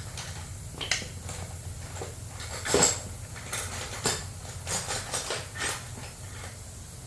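Metal hand tools (wrenches and sockets) clinking and knocking against each other and the engine while the carburetor bolts are removed: about eight scattered sharp clicks, the loudest near the middle, over a low steady hum.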